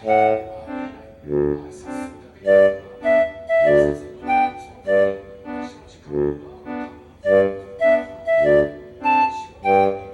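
Background music: a bouncy keyboard melody of short notes over a steady bass beat.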